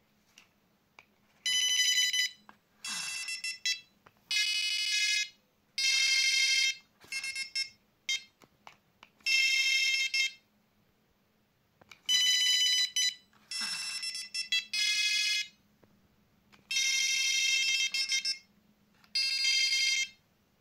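Prologic Custom SMX Mk2 carp bite alarms sounding: a run of shrill electronic beeps, each lasting about a second, with short gaps between them. The pitch and loudness shift from one beep to the next.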